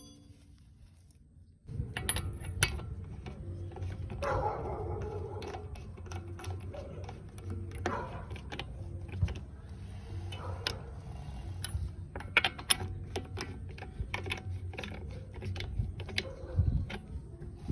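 Hand tools working on a brake caliper and its pads: irregular metallic clicks, taps and knocks, starting about a second and a half in, over a steady low hum.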